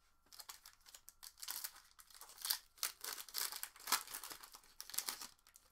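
Foil wrapper of a trading-card pack being torn open and crinkled by hand: a run of irregular crinkling and tearing rustles.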